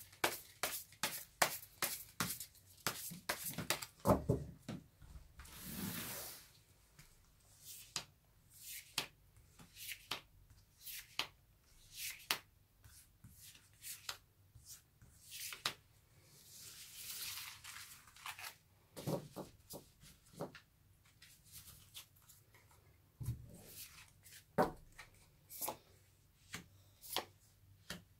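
A tarot deck being shuffled and handled on a cloth: quick runs of card clicks and snaps, a couple of longer sliding swishes as cards spread across the cloth, then scattered single snaps as cards are drawn and laid down.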